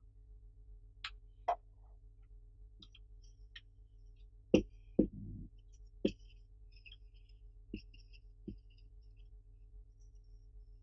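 A marker writing on a whiteboard: short faint squeaks of the strokes, with several sharp taps and clicks, over a steady low hum.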